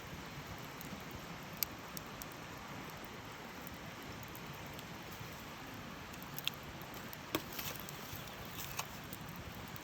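Campfire burning with a steady soft hiss and a few sharp crackles and pops of wood scattered through it.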